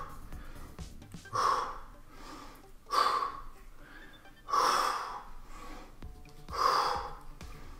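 A man breathing hard through his push-ups: four sharp, heavy breaths about one and a half to two seconds apart, one with each repetition, over background music.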